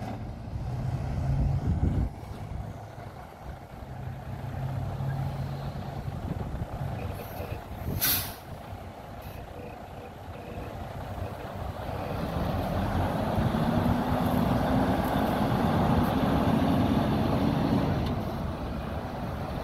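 2017 Freightliner Cascadia semi tractor's diesel engine running low, with a short sharp hiss of air from the air brakes about eight seconds in. From about twelve seconds the engine note rises and holds louder as the truck pulls away.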